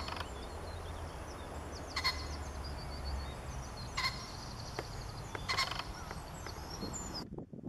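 Small songbirds twittering and chirping, with a louder, harsher bird call repeated four times about two seconds apart, over a low steady rumble. The birdsong cuts off abruptly near the end.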